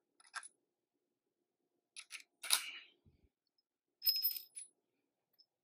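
Steel screws clinking against the aluminium oil pump housing and case of a DCT470 dual-clutch transmission as they are handled and set in their holes: a faint clink, then sharper metallic clinking about two and a half seconds in and again about four seconds in.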